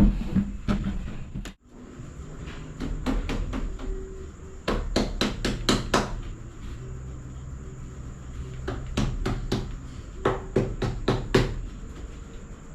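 Sharp knocks or taps in quick runs of four to six strokes, several runs spread across the span, over a faint steady hum.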